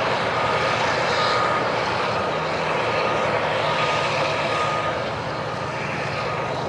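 Komatsu D575A2 bulldozer's large diesel engine running steadily, with a reversing alarm beeping over it in short, even beeps about once a second.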